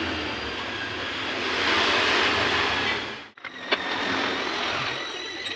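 Steady mechanical rushing noise of machinery, which cuts out briefly about three seconds in. It gives way to a quieter hum, with a single sharp metallic click as a steel bar is set into the lathe chuck.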